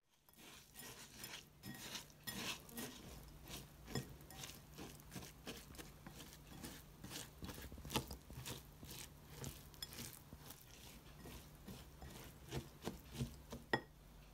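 Kitchen handling sounds during dessert preparation: irregular clinks and taps of utensils against dishes, with a few louder knocks near the middle and near the end, over a steady low hum.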